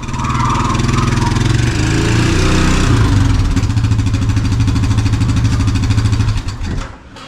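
Farm vehicle engine running under load as it moves a chicken tractor. It picks up in pitch about two seconds in, holds steady, then stops near the end.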